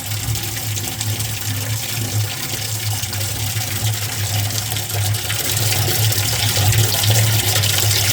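Hot water pouring into the tub of a Speed Queen top-loading washing machine as it fills: a steady rush of water over a low steady hum, getting a little louder about five seconds in.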